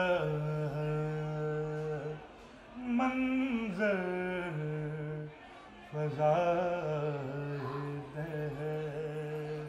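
A man singing a manqabat in praise of Ali, unaccompanied, in long held notes with ornamented slides between phrases. The voice breaks off briefly twice.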